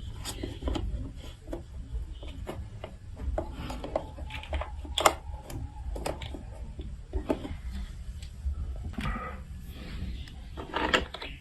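Scattered sharp clicks and clatter of hard plastic marble run building blocks being handled. The clicks come at an irregular pace, with a louder one about five seconds in and a quick cluster near the end.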